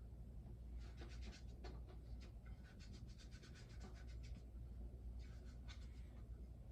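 Faint scratchy ticking in quick runs, about five or six ticks a second at times, from a small plastic kinetic motion toy.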